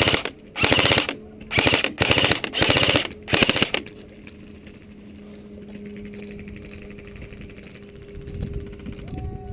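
Airsoft gun firing about five short full-auto bursts in quick succession over the first four seconds, each burst a rapid rattle of shots. A quieter steady hum follows.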